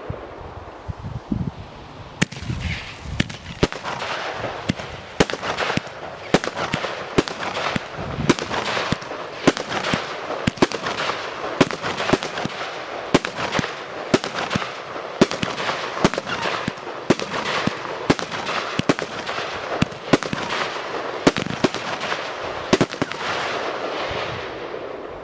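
Vittali Supremo 25-shot firework barrage cake firing. A steady run of sharp launch thumps and aerial bursts, about two a second, begins about two seconds in and stops near the end, over a continuous hiss of falling brocade stars.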